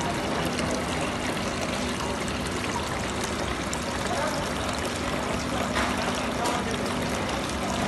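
Decorative artificial-rock tabletop fountain: a thin sheet of water pouring from a spout and splashing steadily into the small pool below, with a low steady hum underneath.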